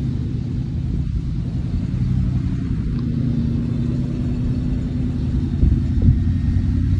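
1995 Ford Bronco's V8 running as the truck drives over soft beach sand: a steady low rumble that grows slightly louder as it comes closer. Two brief low thumps near the end.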